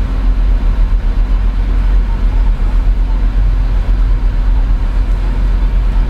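Holden Commodore SS's 6.2-litre LS3 V8 idling, a steady low rumble heard inside the closed cabin.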